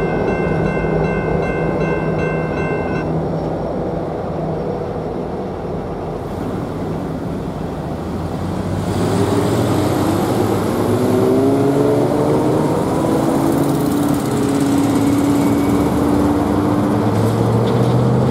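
Railroad crossing bell ringing for the first three seconds and then stopping, over the fading rumble of a departing diesel freight locomotive. Then road vehicles pull away across the tracks, their engines rising in pitch as they accelerate with tyre noise, which is the loudest part.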